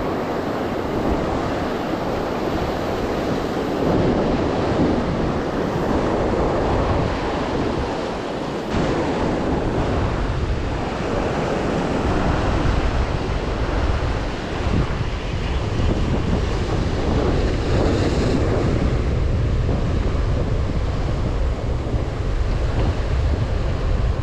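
Rough surf breaking and washing against a rocky shoreline, with wind buffeting the microphone, the buffeting heavier from about halfway through.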